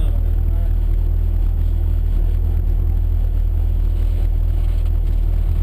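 Class N2 rally car's engine idling while stationary, heard inside the stripped cabin as a steady low rumble.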